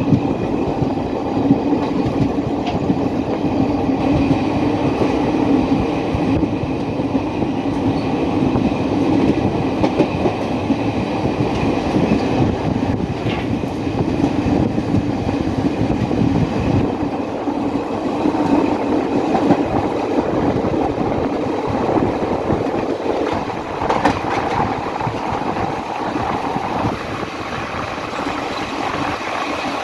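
Train running on the rails: a steady rumble of rolling wagon wheels with some clickety-clack.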